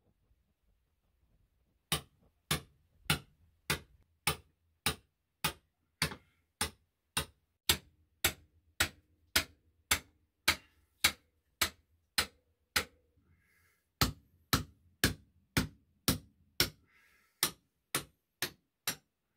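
Hammer blows in a steady, even rhythm, just under two a second, with a brief pause about two-thirds of the way through.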